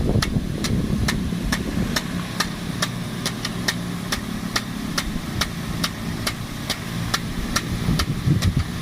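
Water pump's petrol engine running steadily under load, with irregular sharp ticks, about three a second, over its hum.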